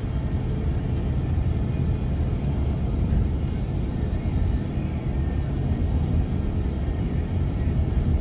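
Steady road and engine rumble heard from inside a moving car's cabin, with music playing over it.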